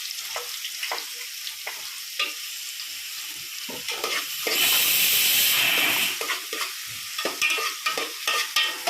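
Onions frying in ghee in a pan: a steady sizzle with a spatula scraping and stirring through them. The sizzle swells louder for about a second and a half midway.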